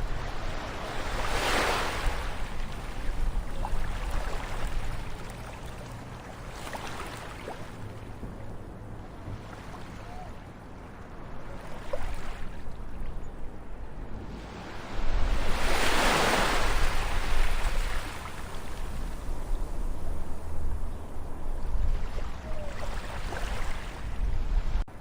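Ocean waves washing in and receding. Each wave swells and fades every few seconds, and the biggest surge comes about two-thirds of the way through.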